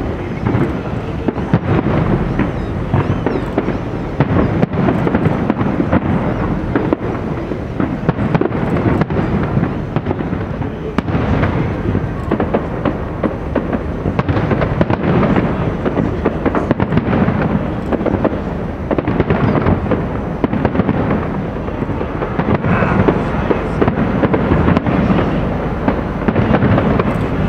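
Aerial fireworks going off in quick succession: a continuous run of bangs and crackling.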